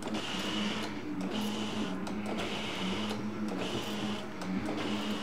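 BMW K1100LT electric windscreen motor running, driving the screen up and down through its screw-drive cables. It makes a steady whirring hum with a higher whine that drops out and comes back several times. The mechanism is freshly lubricated and working again.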